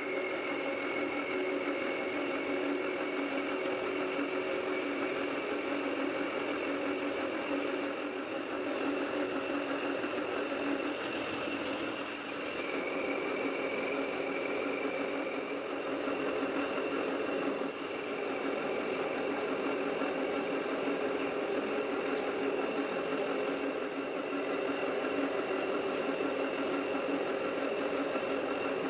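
Metal lathe running while a carbide insert tool turns a steel bar: a steady machine hum with a high-pitched cutting whine. The whine shifts a couple of times as the cut changes.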